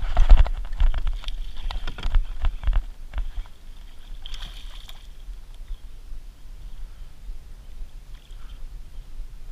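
Knocks and bumps of a paddle and rod against a plastic kayak hull, a cluster of sharp knocks in the first three seconds, then quieter water lapping at the hull.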